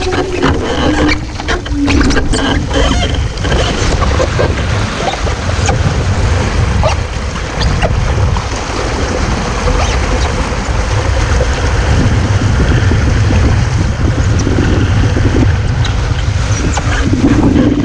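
Wind buffeting the microphone over water rushing past a WASZP foiling dinghy, a steady loud rumble and hiss. A few sharp knocks in the first three seconds, with scattered clicks later.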